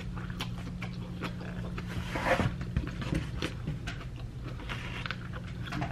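A person chewing a mouthful of takeout noodles and fried rice, with many small wet mouth clicks and a brief louder sound about two seconds in, over a steady low hum.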